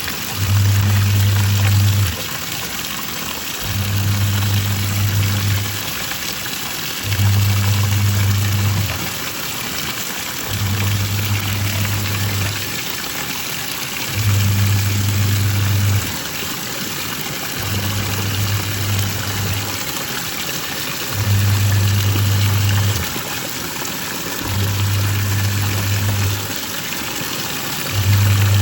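Twin-tub washing machine in its wash cycle: the wash motor hums for about two seconds, pauses, and starts again, about every three and a half seconds, as the pulsator reverses direction. Under it runs a steady swish of water churning in the tub.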